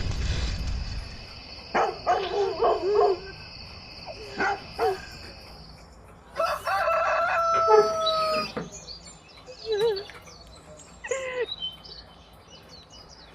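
A rooster crowing: one long, drawn-out crow about halfway through, the loudest sound, with shorter calls before and after it.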